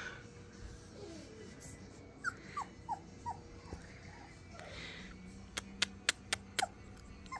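Basset hound puppy whimpering in short, high squeaks that fall in pitch, about four in quick succession a couple of seconds in and another near the end. A quick run of sharp clicks comes shortly before the last squeak.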